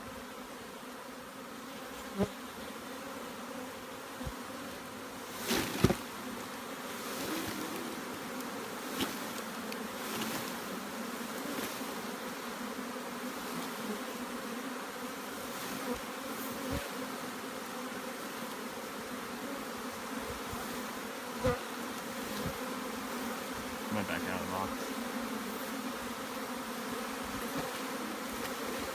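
Honey bee swarm buzzing steadily, with a few sharp knocks, the loudest about six seconds in.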